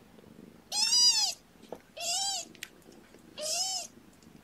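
A two-and-a-half-week-old kitten crying three times, each a high mew about half a second long that rises and then falls in pitch: a hungry kitten fussing while it waits for its formula.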